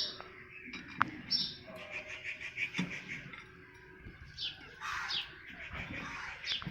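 Small birds chirping, several short high calls in the second half, with a sharp click about a second in.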